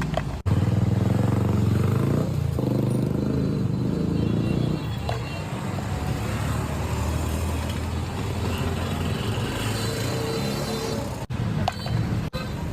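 Street traffic, with a motor vehicle's engine running steadily close by.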